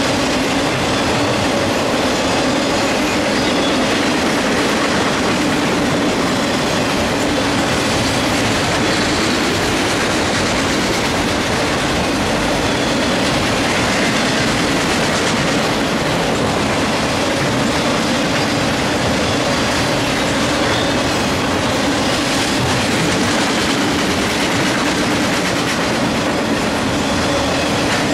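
Autorack freight cars rolling past close by: a steady, loud noise of steel wheels running on the rails.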